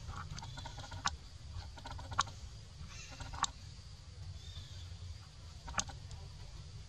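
Outdoor forest-floor ambience: a steady low rumble with four short, sharp clicks or snaps spread through it, and faint high chirps in the background.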